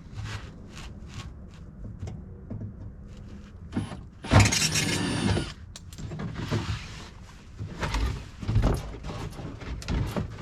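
Cordless impact driver running for about a second as it backs out the last screw holding the wheel-well liner. Scattered clicks and knocks of the liner and screws being handled come before and after it.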